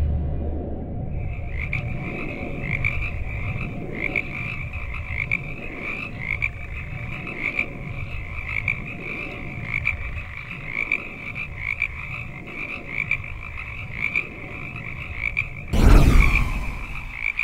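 Frog chorus: many short calls repeating over a low, steady rumble. About sixteen seconds in, one loud crash.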